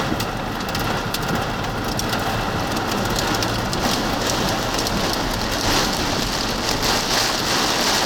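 Heavy rain pelting a vehicle's roof and windshield, heard from inside the cabin: a dense, steady patter that grows heavier about five and a half seconds in.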